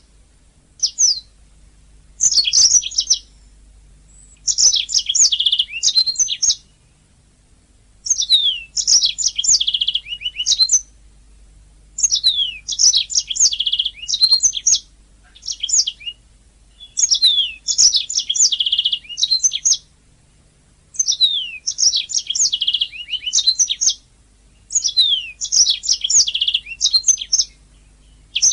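Domestic canary singing in repeated bursts, each a second or two of fast trills and downward-sliding whistles, with short pauses between them. A faint low hum runs underneath.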